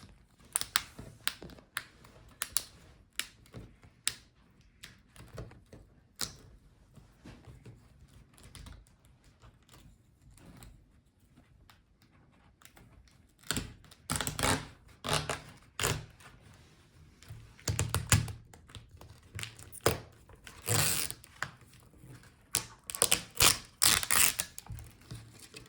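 Laptop display's plastic front bezel being pried off its screen with a pry tool: scattered small clicks and taps, sparse and faint at first, then louder clusters of clicks and snaps through the second half.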